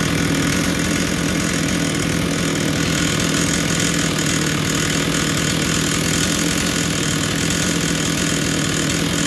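McCulloch Pro Mac 1000 two-stroke chainsaw engine idling steadily at an even pitch, with no revving.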